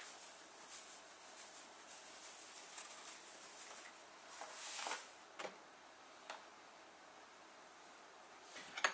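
Faint kitchen handling: sugar poured from a measuring cup into a bowl of flour, a soft rustling swell about four to five seconds in, followed by a couple of light clicks.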